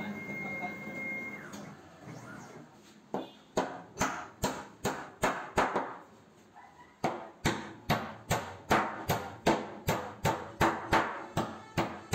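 A CNC router's spindle whine runs for about a second and a half and stops. Then, after a short pause, comes a steady run of sharp knocks, two or three a second, with a brief break near the middle.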